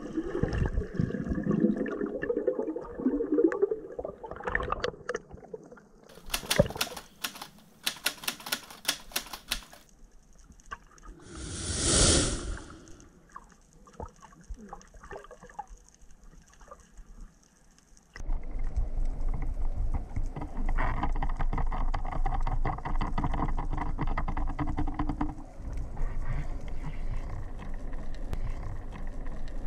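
Underwater sound heard through an action camera's waterproof housing during a freedive. First bubbles and churning water as the diver goes under, then bursts of dense, rapid clicking, a rush of noise that swells and fades about twelve seconds in, and from about eighteen seconds a steady underwater rush.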